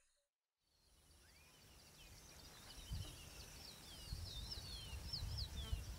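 Outdoor nature ambience fading in from silence: a low rumbling background, with birds calling in short whistles. One rising chirp comes early, and several quick falling whistles follow in a cluster toward the end.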